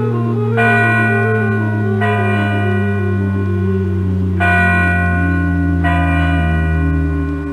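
Introductory music: a bell struck four times at uneven intervals, each stroke ringing on, over a steady low drone and a slow stepping melody. The drone cuts off near the end.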